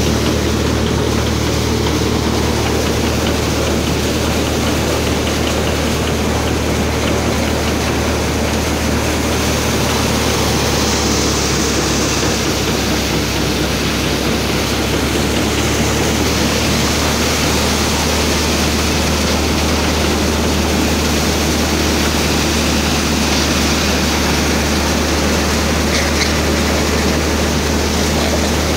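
Grain threshing machine running steadily under load, a constant low hum under an even rushing noise.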